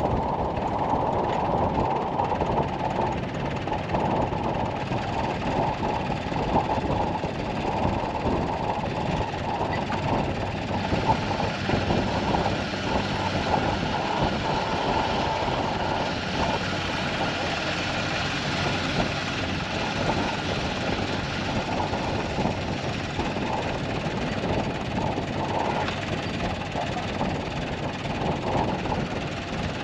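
Vehicle engine idling steadily, a constant low rumble with no revving.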